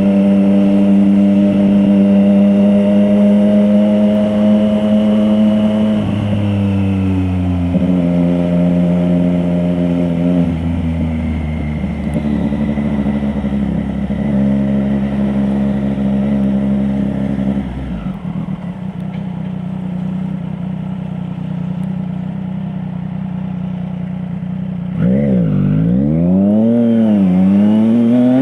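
2024 Triumph Street Triple RS 765's inline-three engine through an SC Project S1 slip-on exhaust, running under way. The pitch holds or climbs slowly and drops a few times in the first half, settles to a lower steady note about two-thirds of the way through, then swings down and back up twice near the end.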